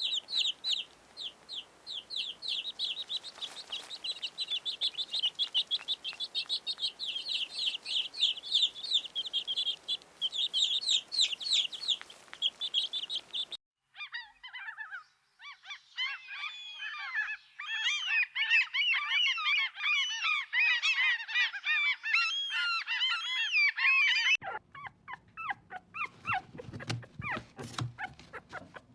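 A run of animal calls: first a fast, even series of high calls repeated several times a second for about thirteen seconds, then a dense flock of birds calling over one another, like geese honking, for about ten seconds. Near the end a different, lower animal sound takes over.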